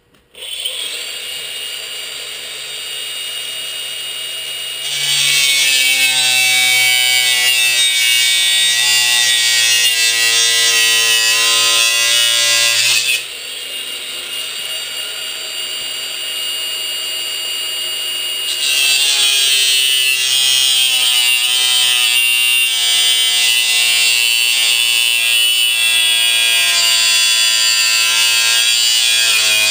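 Power tool cutting sheet steel. The motor starts and runs free, then bites into the metal with a loud hiss for about eight seconds, eases back to running free, and cuts again from about halfway through.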